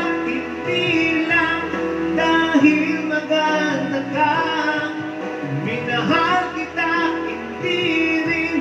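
A song: a singing voice over instrumental accompaniment.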